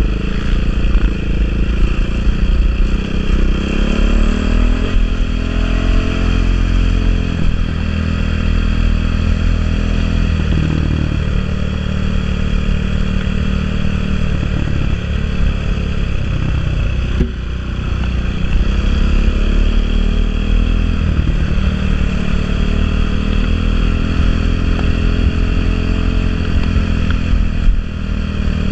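Enduro motorcycle engine running under way, its pitch rising and falling repeatedly as the throttle is opened and closed through the gears.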